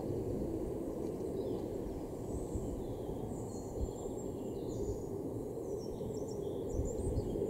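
Airbus A330 airliner at cruise altitude, its jet engines a steady low rumble from high overhead. Small birds chirp over it from about a second and a half in.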